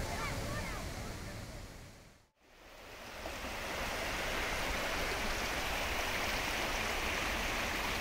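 A steady rushing of running water fades in after a brief drop to silence about two seconds in.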